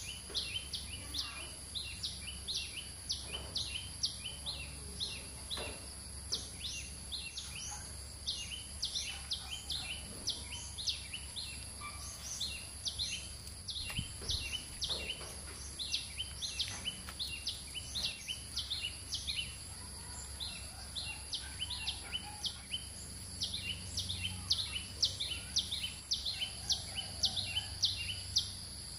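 Birds chirping rapidly and without pause over a steady high-pitched insect drone, with occasional soft slaps of wet mud being pressed onto a wall by hand.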